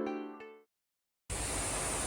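Background music of plucked-string notes dies away, a moment of dead silence follows, and then a steady hiss-like noise begins about a second and a half in and holds evenly.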